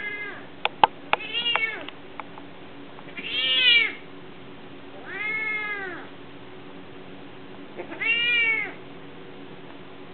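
Domestic cat meowing over and over in distress at the tee shirt put on it to keep it off its surgical stitches: four long, arching meows a couple of seconds apart. There are a few sharp clicks about a second in, and a steady low hum runs underneath.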